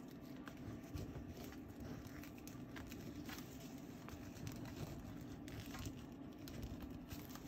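Faint scratching and tapping of a black pencil marking sketchbook paper, in scattered small strokes over a steady low hum.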